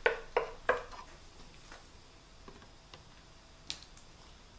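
Wooden spoon knocking against a skillet as thick pineapple filling is scooped into a pie crust: three sharp knocks in the first second, then quiet with a single faint tap near the end.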